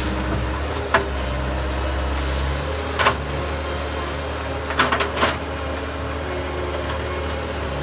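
Bobcat skid steer engine running steadily under work, with several short sharp knocks or cracks about one, three and five seconds in as the front claw works the trees.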